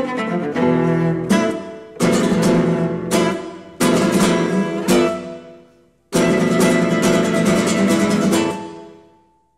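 Background music of strummed acoustic guitar chords, each struck hard and left to ring; a last chord about six seconds in dies away to silence near the end.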